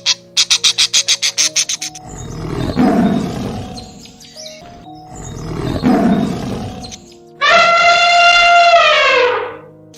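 A string of animal calls over light background music. It starts with rapid chirping pulses, about seven a second, then two rough, noisy roaring calls. After that comes one long cat-like meow that slides down in pitch as it ends.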